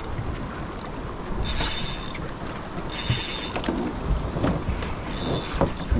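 Fishing reel's drag giving line in three short buzzing runs as a hooked fish pulls against it, over steady wind and water noise.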